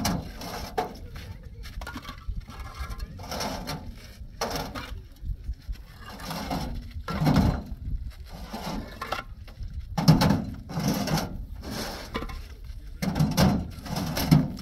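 People talking in short bursts with brief pauses.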